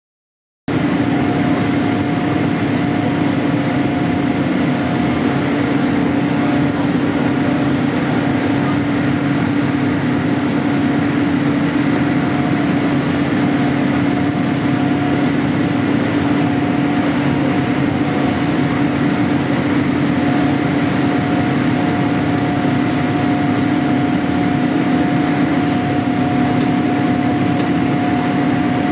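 Cabin noise of a Boeing 787-8 Dreamliner climbing after takeoff, its Rolls-Royce Trent 1000 engines running: a steady rush of air with a held hum and a few steady tones. It comes in suddenly just under a second in.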